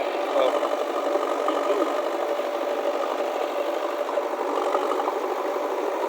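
JCB backhoe loader's diesel engine running steadily with an even hum, with faint voices in the background.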